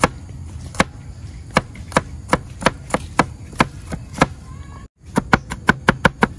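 Knife chopping garlic cloves on a plastic cutting board, mincing them finely: sharp knocks of the blade on the board. The chops are spaced out and uneven at first; after a brief silent gap near the end they come faster, several a second.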